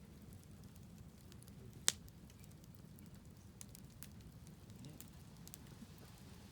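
Wood fire crackling, with scattered small pops and one sharp, loud pop about two seconds in.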